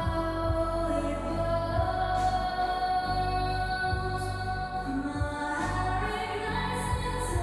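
A woman singing a slow melody in long held notes over soft music, with a low soft thump about once a second underneath.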